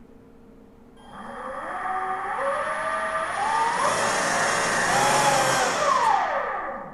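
Motenergy ME1115 electric motor, driven by a Kelly controller, whining as it spins up: the pitch climbs in steps for about five seconds, with a thin high tone above it, then drops quickly as the motor spins down near the end. The motor is running up to the controller's programmed top speed of 4000 rpm.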